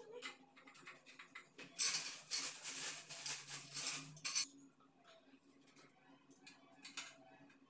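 Parts of a clothes hanging stand being handled during assembly: a couple of seconds of dense rustling and clattering about two seconds in, with light clicks and taps either side.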